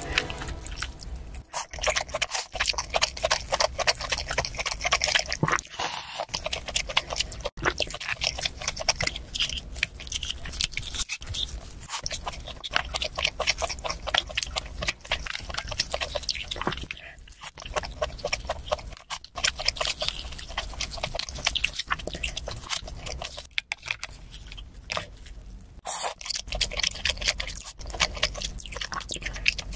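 Close-miked wet chewing and slurping of noodles: a dense, continuous run of mouth clicks and smacks.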